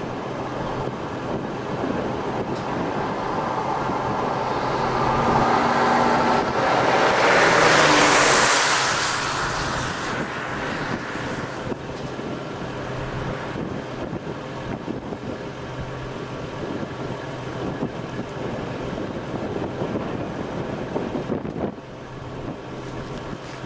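Wind rushing over the microphone over a steady low hum from a vehicle. A rushing swell builds to its loudest about eight seconds in, then eases.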